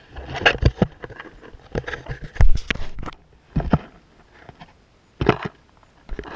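Irregular knocks and rustling as a caught triggerfish is handled on a plastic kayak, with a few sharp, loud knocks spread through.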